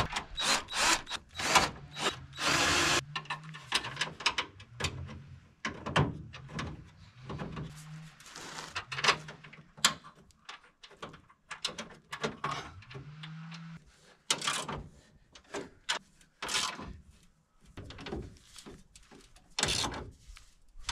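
Cordless drill-driver with a socket running briefly about two seconds in, driving a bolt into the bolt-on front end panel of a stripped car, amid scattered metal knocks and clanks as the steel panel is fitted by hand.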